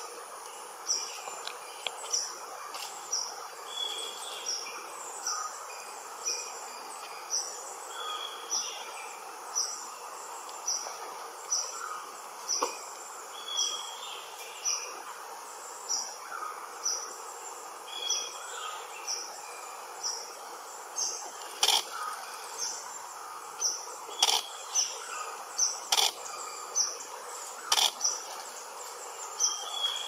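Rainforest ambience: a short high note repeats evenly, about three every two seconds, over a steady insect hiss. Weaker high calls come and go. In the second half, about five sharp clicks stand out as the loudest sounds.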